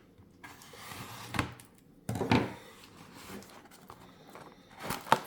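A cardboard box being opened and handled by hand: soft rustling and scraping, then a few short knocks, the sharpest just before the end.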